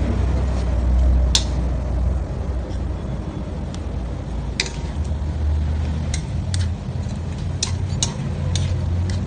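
Coconut milk boiling in a metal pan over a steady low rumble, with a metal spatula clicking against the pan about ten times, one early and most in the second half.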